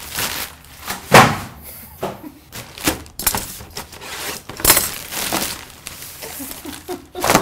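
A plastic mailer bag being cut and torn open: crinkling, rustling plastic with several sharp crackles, the loudest about a second in.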